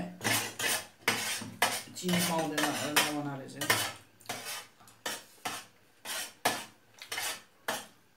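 Steel spoons clinking and scraping on metal plates as people eat, in quick irregular clicks, with a short murmur of a voice about two seconds in.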